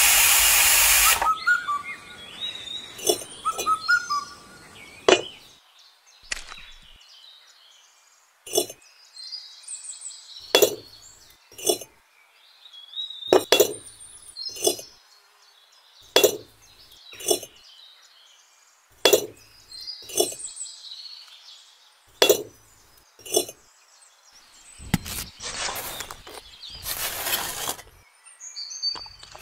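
Sharp, hard clinks of small hard objects knocking together, mostly in pairs every two to three seconds, with faint bird chirps between them. A hiss runs for about the first second, and a rushing noise comes near the end.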